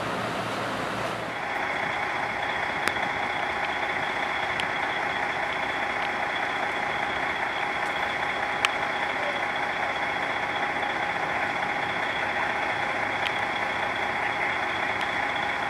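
An engine idling steadily, its drone carrying two constant tones, with a few sharp clicks now and then. About a second in, it takes over from a windy, watery haze.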